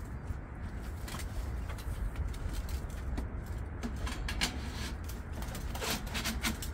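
Several sharp metallic clicks and scrapes as stainless stovepipe sections are slid and fitted together on a wood-burning stove's chimney, over a steady low rumble.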